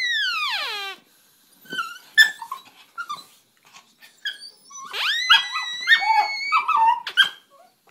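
Beagle whining and yelping. A long high whine slides down in pitch and stops about a second in, short yips follow, and a second long whine rises and holds from about five seconds in, broken by more yelps.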